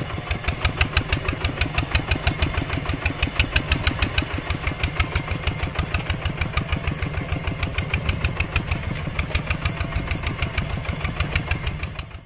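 Small engine running steadily with an even chugging beat of about nine pulses a second.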